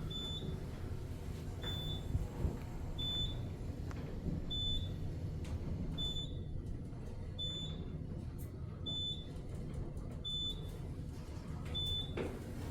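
Short high electronic beep repeating about every second and a half, over a low steady hum.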